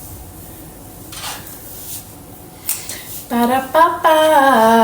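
Light clinks of dishes and cutlery. About three seconds in, a voice sings a short 'ba-da-ba-ba' tune in held notes that step downward.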